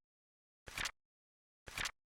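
Flip clock flip sound effect: a short double clack, repeating once a second, twice here, with silence between.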